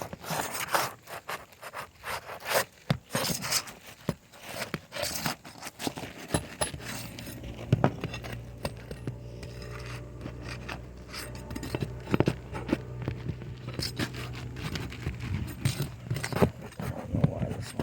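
Pry bar scraping and clicking under brittle roof shingles as one is worked loose from its nails, in an irregular run of scrapes and knocks. From about six seconds in, a low steady hum joins underneath.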